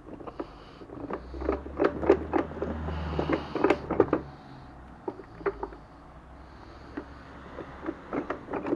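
Steel gears, shafts and clutch drums of a Mercedes 722.7 automatic gearbox knocking and clinking against each other and the casing as the interlocked gear sets are worked loose. There is a dense run of clicks in the first four seconds, then a few scattered knocks.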